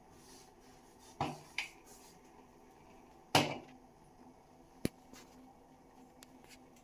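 A few short knocks of kitchen utensils against a pot: two about a second in, the loudest about three and a half seconds in, then a sharp click near five seconds.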